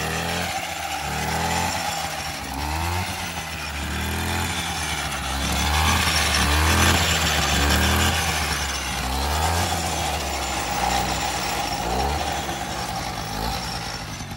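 Small engine of a Mofa moped running just after being pedal-started, revved up and down several times. It is loudest about halfway through.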